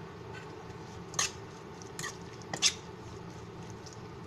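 Metal spoon scraping and clinking against a stainless steel bowl while stirring sliced raw beef in its marinade: a few short scrapes spaced about a second apart.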